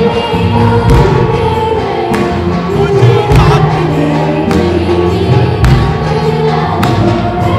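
Live band music at a Bollywood concert, with singing over held bass notes and regular drum hits.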